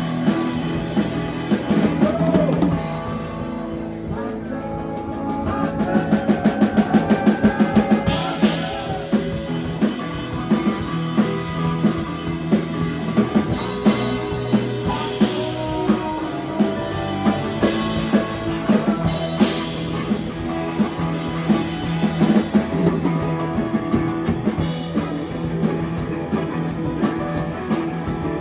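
Live rock band playing, drum kit and guitar, with a quick run of even drum hits about six seconds in.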